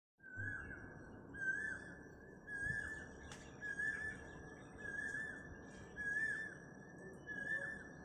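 A steady high whistling tone with a short curling flourish that repeats about every 1.2 seconds.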